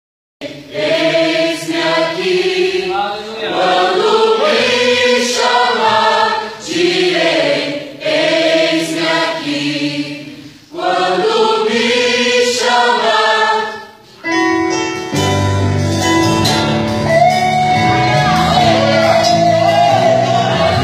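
Mixed church choir singing a hymn in phrases with short breaks between them. About fourteen seconds in, a band with electric bass, drums and keyboard starts playing.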